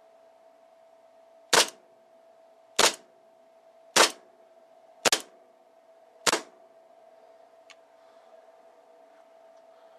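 KJ Works Xcelerator Hi-Capa gas blowback airsoft pistol firing five single shots about a second apart, each a sharp crack with the slide cycling.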